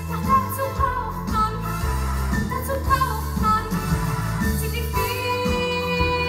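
A woman singing a musical-theatre song over instrumental accompaniment with a steady bass line, holding a long note near the end.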